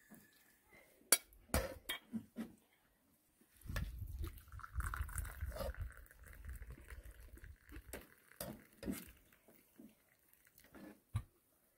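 A metal slotted spatula clinks and scrapes against a frying pan and a plate as food is served. From about four seconds in, tea is poured from a porcelain teapot into a cup.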